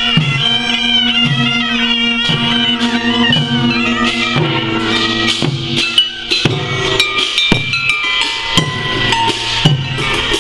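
Korean traditional military processional music (daechwita-style) from a royal guard band: reedy wind instruments and horns play a wavering melody over a steady drum beat, with sharp percussion strikes in the second half.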